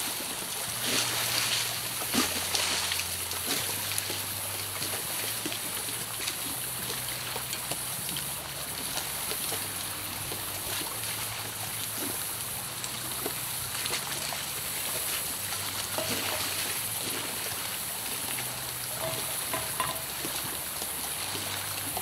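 Catfish frying in hot oil in a cast iron skillet over a campfire: a steady sizzle. A few light clicks of metal on the pan come near the start.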